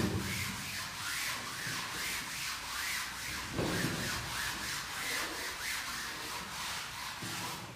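A blackboard eraser wiping chalk off a chalkboard in quick, repeated back-and-forth strokes, a steady scratchy rubbing. There is a knock as the eraser first meets the board, and a brief low thump about three and a half seconds in.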